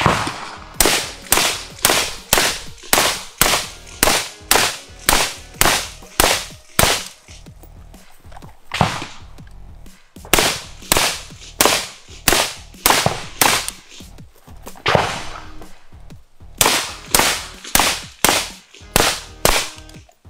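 Rapid gunshots from a 10.5-inch Battle Arms Development Workhorse AR pistol, fired steadily at about two a second on the move, with two short breaks about a third and two thirds of the way through where the shooting stops.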